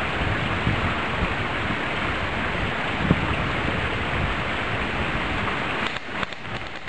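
Steady rushing noise of wind buffeting the camera's microphone, with low rumbles. It cuts off suddenly near the end.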